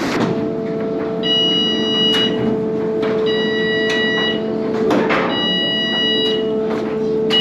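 A passenger ferry's warning beeper sounding in long beeps, each about a second long, three times, over the steady hum of the ferry's engines, with a few knocks, as the ferry comes in to dock.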